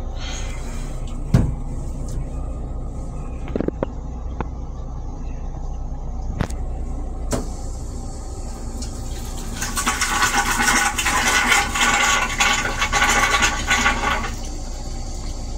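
Stainless steel toilet in a Metro-North M3 railcar restroom flushing: a loud rushing hiss of blue flush fluid rinsing the bowl for about four and a half seconds, starting about ten seconds in and cutting off abruptly. Before it, a sharp knock about a second in and a few lighter clicks, over a steady low rumble.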